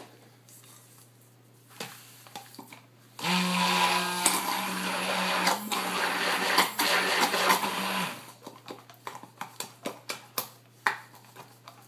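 Handheld electric blender running steadily for about five seconds, mixing colorant into a small portion of soap batter, then stopping. Light clicks and taps follow.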